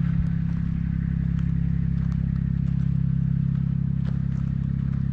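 Kubota side-by-side utility vehicle's engine running at a steady pace while driving, with a few light rattles.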